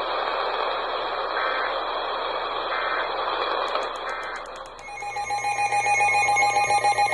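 Radio receiver static with three faint short data bursts about a second and a half apart, the Emergency Alert System's end-of-message tones closing the warning. About five seconds in, the static cuts to a louder, rapidly pulsing electronic ringing made of several steady tones.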